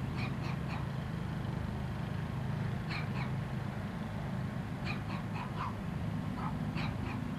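Pietenpol Air Camper's rebuilt engine running at low taxi power, a steady low drone. Over it, an animal gives short high calls in clusters of two to four, several times.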